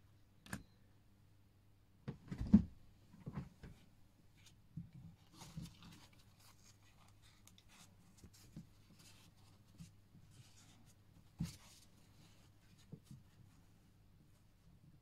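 Small clicks, taps and light scrapes of watch parts and tools being handled, fitting a dial and movement into a watch case, in scattered strokes with the loudest knocks about two and a half seconds in, over a faint steady hum.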